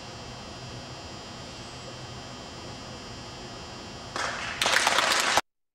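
Steady hum of a large gym, then near the end a short burst of audience applause: it starts softly, swells, and cuts off abruptly after about a second.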